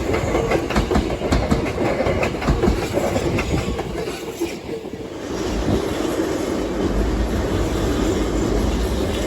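Hankyu Railway electric train passing close by, its wheels clicking over the rail joints in the first half. After a brief lull about five seconds in, a steadier rumble of running train follows.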